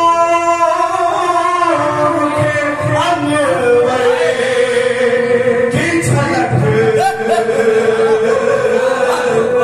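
A man singing an Urdu devotional kalam solo into a microphone, unaccompanied, in long held notes with winding melodic turns between them.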